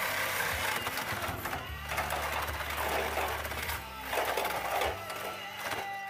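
Reciprocating saw (Sawzall) with a thick metal-cutting blade running as it cuts through the car's exhaust to take off the catalytic converter. The saw stops about five seconds in.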